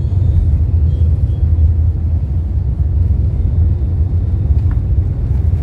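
Airliner cabin noise during the takeoff roll: the jet engines and the wheels on the runway make a steady, loud low rumble.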